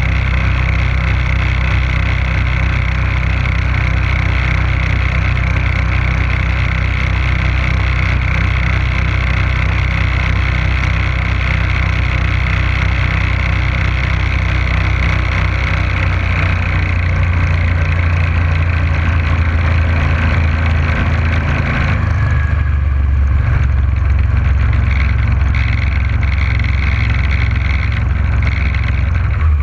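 Boat motor running steadily under way, with the rush of water and wash from the wake. About 22 seconds in the higher hiss drops off and the engine sound shifts as the boat turns.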